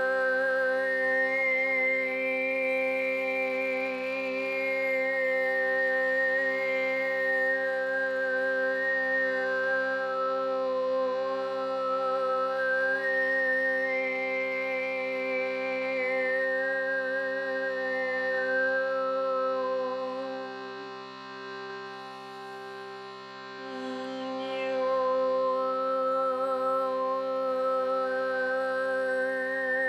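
Background meditation music: a steady held drone under a slow, wandering melody line. It drops in loudness briefly about two-thirds of the way through, then comes back.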